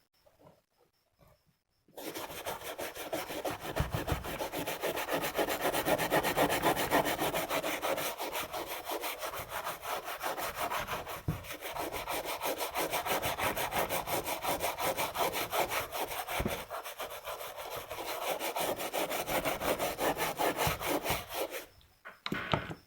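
Rapid, steady back-and-forth scraping on a phone motherboard. It starts about two seconds in and stops shortly before the end.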